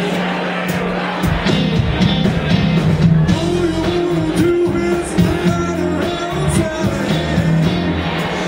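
Live blues-rock band playing: electric guitar and saxophone over drums and keyboard, with a held note standing out about midway.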